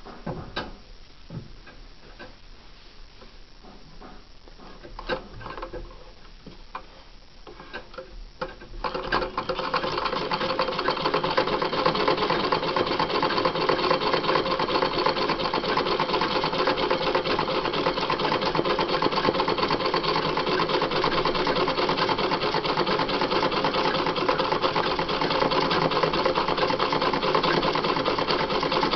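Sewing machine running steadily while stitching free-motion embroidery, starting about nine seconds in after a few light clicks and knocks.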